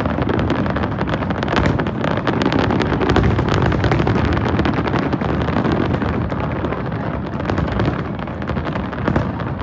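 Aerial fireworks going off in a dense, continuous barrage: many overlapping bangs and crackles with no break.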